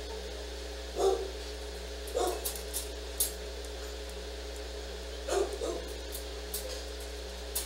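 A dog barking in single, spaced-out barks, including a quick double bark a little past the middle. A few sharp clicks and a steady low hum sit underneath.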